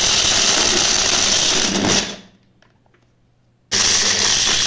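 Cookwell 600 W bullet blender's motor grinding a jar of dried peels. It runs in two pulses of about two seconds each, with a pause of about a second and a half between them.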